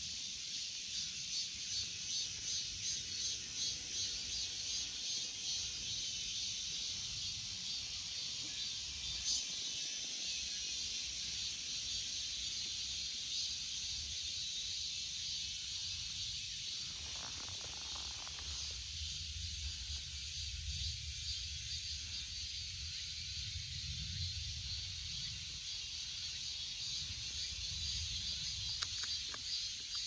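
Cicadas buzzing: a steady high-pitched drone with a fast pulsing rhythm, clearest in the first ten seconds or so.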